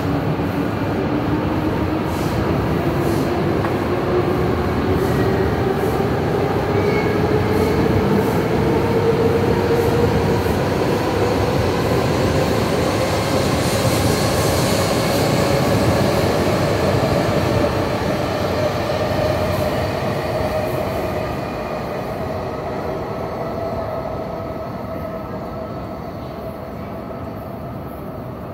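E5 series Shinkansen pulling out of a station platform: the traction motors' whine rises steadily in pitch as the train gathers speed, over loud wheel and rolling noise. The sound fades over the last several seconds as the last cars pass and the train leaves.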